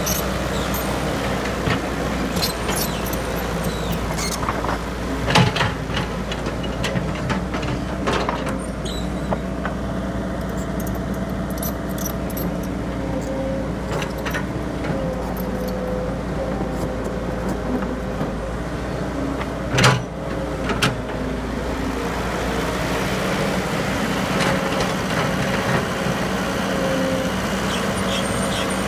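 Excavator's diesel engine running steadily while it digs soil and loads a dump truck. A few sharp knocks break through, the loudest about twenty seconds in.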